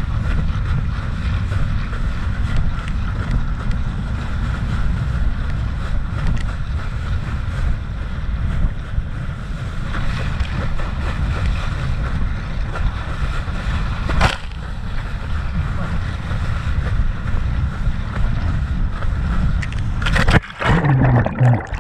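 Wind buffeting the camera microphone over water rushing and spraying under a rider being towed at speed behind a boat. Near the end the rushing breaks up into a sudden churning splash as the rider goes down into the water.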